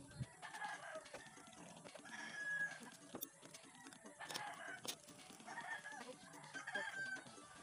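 Chickens clucking faintly: a string of short calls with one longer held call about two seconds in. A couple of faint clicks can also be heard.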